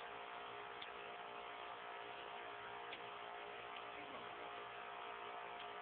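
Steady background hum and hiss with a few faint steady tones and a couple of faint clicks.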